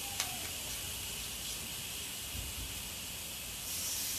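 Lamb and vegetables sizzling steadily on a hot barbecue grill. A sharp click of metal tongs comes just after the start.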